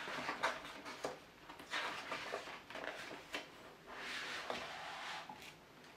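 Paper pages and cover of a picture book being turned by hand: rustling and flapping of paper in several separate swells, with a few light clicks.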